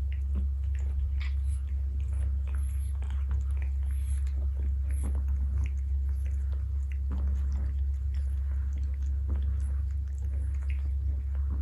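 A cat chewing, with irregular small crunches and clicks. A steady low hum runs underneath.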